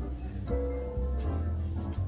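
Background music with a steady bass line and held melody notes.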